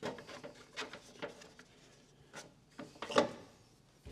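Hard plastic 3D-printed PLA parts rubbing and knocking together as an insert is forced down to key into its neighbouring piece and does not yet seat. There is a series of light clicks and knocks with scraping between them, the loudest knock about three seconds in.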